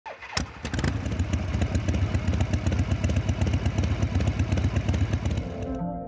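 Harley-Davidson Low Rider S V-twin engine running, with a rapid, uneven exhaust pulse. It comes in sharply about half a second in and cuts off abruptly just before the end.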